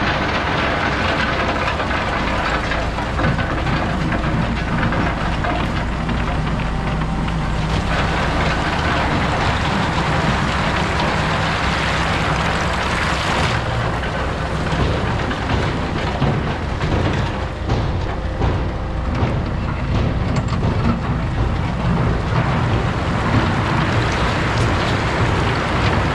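Heavy diesel equipment running steadily under a constant rushing noise, which shifts in character about a third and about halfway through.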